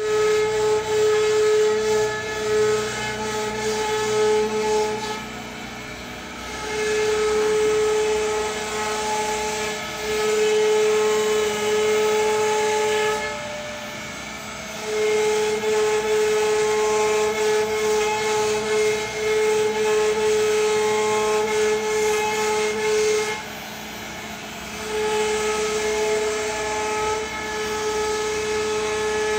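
CNC router spindle with its bit cutting through MDF: a loud, steady high whine over cutting noise. About five seconds in, again near the middle, and again a few seconds before the end, the whine breaks off into a quieter hum for a second or two, then comes back.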